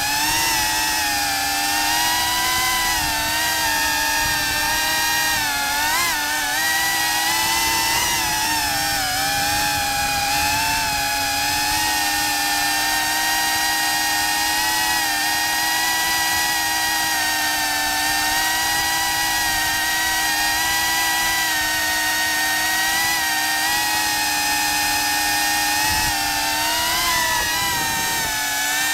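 FPV quadcopter's electric motors and propellers whining steadily, the pitch wavering slightly up and down as the throttle changes.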